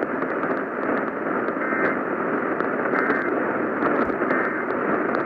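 AM radio static hiss with a thin crackle and three short, faint bursts of two-tone data a little over a second apart. These are the Emergency Alert System end-of-message code sent once the spoken warning is over.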